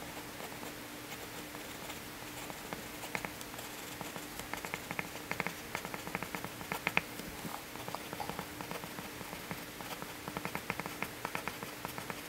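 Graphite pencil writing on paper: runs of short, quick strokes, one stretch from about a quarter of the way in to past the middle and another near the end, over a faint steady hum.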